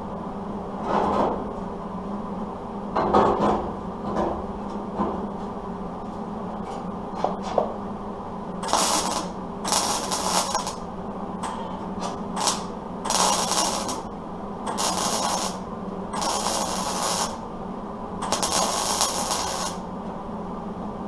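Welder tacking a steel patch panel into rusted truck sheet metal: about eight short bursts of welding, most around a second long, starting about eight seconds in, over a steady low hum. A few softer, shorter noises come before the first bursts.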